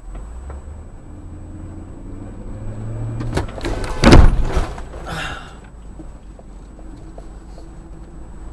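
Car engine running and rising in pitch, then one loud crash of a collision about four seconds in, followed briefly by a hissing scrape.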